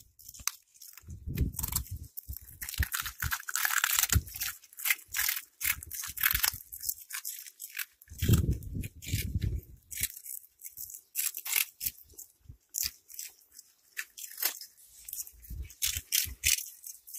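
Cats chewing crunchy puffed snack balls: rapid, irregular crisp crunches, with a few dull low thumps mixed in.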